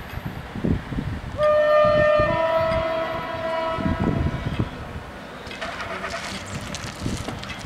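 Train horn: one blast starting about a second and a half in that shifts to a second note partway through and fades out over a few seconds, over a low uneven rumble.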